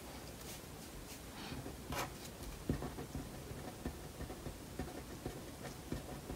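Felt-tip marker drawing on a white drawing surface: faint scratchy strokes and small ticks of the tip, a few at first and then coming thick and fast for the second half.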